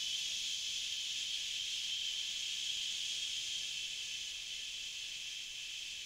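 A long, steady 'shh' exhale: a person breathing out slowly through the mouth with a shushing hiss to empty the lungs, easing off slightly in the second half.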